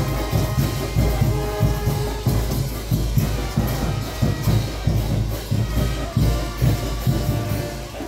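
Caporales dance music with a steady drum beat under sustained melody lines.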